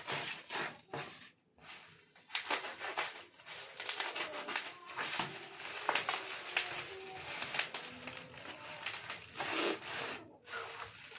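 Packaging being handled and opened during unboxing: irregular rustling, crinkling and small knocks.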